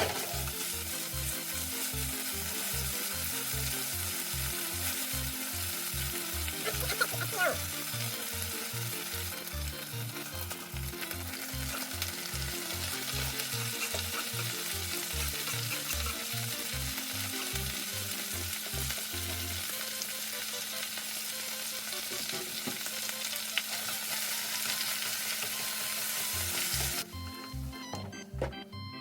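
Food sizzling steadily in a hot frying pan; the sizzle cuts off suddenly near the end, leaving only soft background music.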